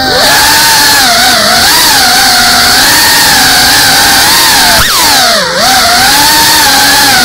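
FPV quadcopter's brushless motors whining loudly in flight, heard from the drone's own camera, the pitch wavering as the throttle changes. About five and a half seconds in the pitch briefly drops and rises again.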